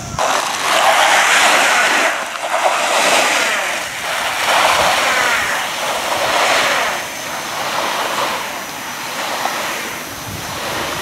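Skis scraping over plastic artificial-snow mats on a mogul run: a hiss that swells with each turn, about every one and a half to two seconds, growing fainter as the skier moves away.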